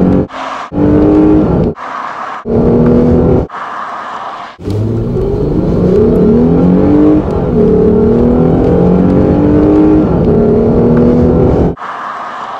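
Lexus IS 350 F Sport's 3.5-litre V6 engine accelerating at full throttle, heard from inside the cabin, its pitch climbing through each gear and falling back at two upshifts. The first few seconds are chopped into short bursts of revving that cut off abruptly, and the sound turns quieter near the end.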